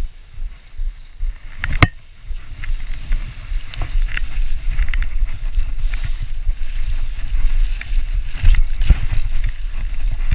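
Mountain bike riding along a trail covered in dry fallen leaves: wind buffeting the microphone, with the tyres rustling through the leaves and the bike ticking and rattling. A single sharp knock about two seconds in.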